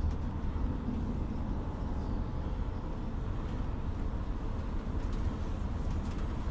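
Steady engine drone and tyre road noise heard inside the cabin of a coach bus under way.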